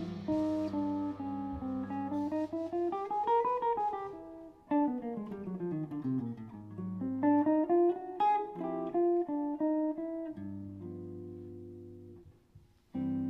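Hollow-body archtop electric jazz guitar playing alone: running single-note phrases that climb and fall, then several held chords near the end.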